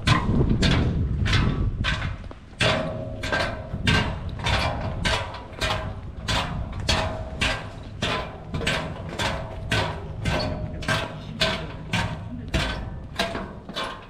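Hiker's footsteps crunching steadily on the trail, about two steps a second, many steps with a short squeak.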